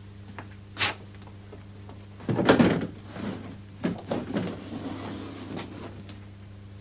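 A door being opened and shut: a click, then a loud clunk and scrape about two and a half seconds in, followed by several knocks and a rattle. A steady low hum runs underneath.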